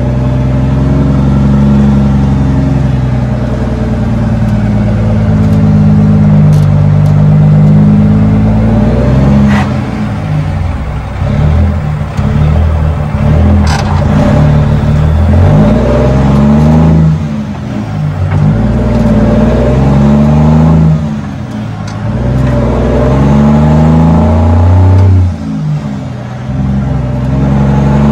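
Cummins L10 inline-six turbo diesel in a 1987 Ford L9000, heard through 6-inch straight-piped stacks as the truck accelerates through the gears. The exhaust note climbs in pitch, drops away briefly at each shift and climbs again, with about three shifts in the second half.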